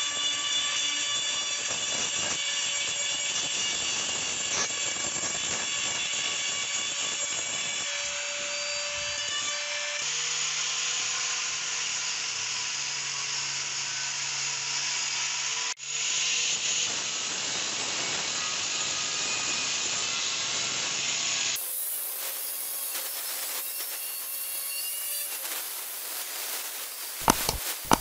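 A small rotary tool grinding metal around a rivet on an old iron pan, then, from about ten seconds in, an angle grinder with a wire cup brush scrubbing rust off the pan, its motor whine steady under the scraping. A few sharp knocks near the end.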